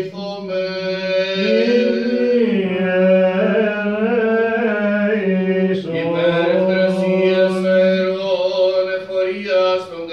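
A male voice chanting Byzantine church chant in long, drawn-out notes with slow melodic ornaments, part of the litany sung at Orthodox vespers. The line breaks briefly about six seconds in, then carries on.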